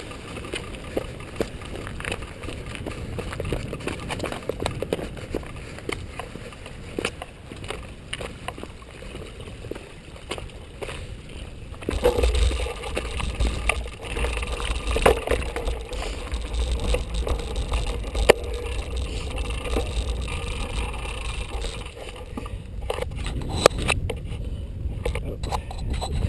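Mountain bike riding over a rocky, stony trail: tyres crunching on loose rock and the bike rattling, with many small knocks. From about halfway a low rumble grows louder, and near the end there are a few sharper knocks.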